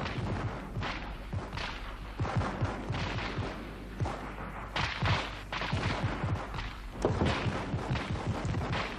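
Gunfire of a street battle: many irregular shots, several a second, overlapping and continuing throughout.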